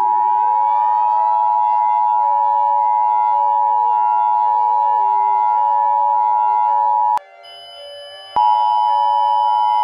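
Emergency Alert System attention signal: a loud, steady two-tone beep held on one pitch near 1 kHz. Under it a siren-like wail rises in pitch and levels off about two seconds in. The tone cuts out for about a second around seven seconds in, then comes back.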